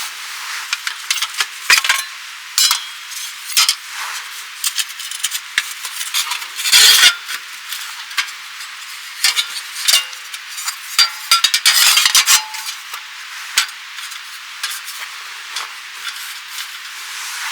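Irregular clicks, scrapes and light clinks of camp gear being handled, like a utensil stirring and scraping in a pot, with denser bursts of scraping about seven and twelve seconds in.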